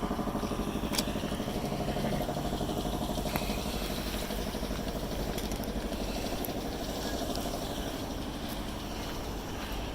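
An engine idling steadily with a fast, even pulse, with a single sharp click about a second in.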